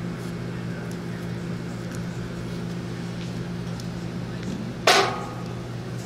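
Window air conditioner running with a steady low hum. One sharp clack comes about five seconds in.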